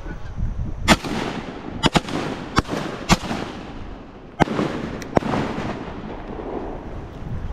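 A rapid volley of about eight shotgun shots, fired at a flock of geese overhead, spread over about four seconds. Some shots are loud and near and others fainter, and each leaves a rolling echo.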